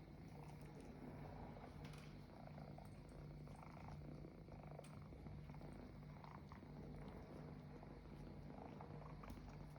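Kitten purring faintly and steadily, the low purr pausing briefly every couple of seconds.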